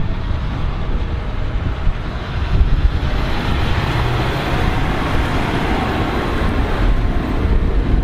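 John Deere 6215R tractor towing a Dewulf RQ2060 two-row potato harvester driving past. Its diesel engine and running gear build to a peak in the middle and fade as it moves away.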